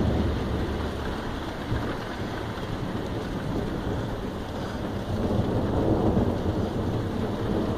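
Thunder rumbling over steady heavy rain; the low rumble dies back in the first second and swells up again about five seconds in.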